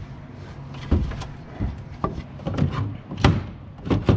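Hard plastic knocks and clacks from a phone holder fixed with push pins into a UTV's plastic dash, handled and wiggled to test that it is secure. There are a few single knocks, then a quick rattle near the end.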